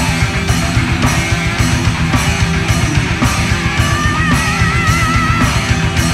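Heavy metal band playing live: distorted electric guitars, bass and a steady drum beat with about two hard hits a second. About three seconds in, the singer holds a high note with wide vibrato for about two seconds.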